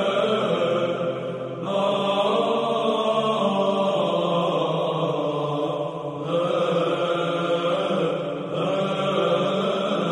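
Church chant playing as background music: slow singing on long held notes over a steady low drone, in phrases separated by short breaths about one and a half, six and eight and a half seconds in.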